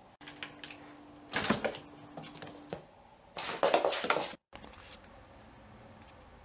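A cat scrabbling and pouncing on a shaggy rug, the rug scuffing across a wooden floor in scratchy bursts, the loudest about three and a half seconds in, then cutting off suddenly.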